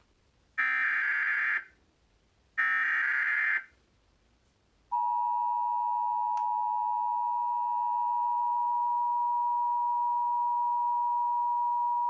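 Emergency Alert System SAME header: two one-second bursts of screeching digital data tones about two seconds apart. About five seconds in, the steady two-tone EAS attention signal starts and holds.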